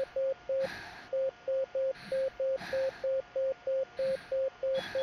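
Bedside patient monitor beeping once per heartbeat: short, identical high beeps at a fast rate of about three a second, matching a heart rate around 186, a tachycardia in a dehydrated child.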